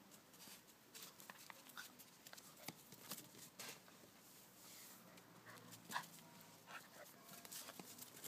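Young dog's faint whimpers and yips while play-fighting with a cat, with short scuffling clicks of paws on dry dirt; one louder yip about six seconds in.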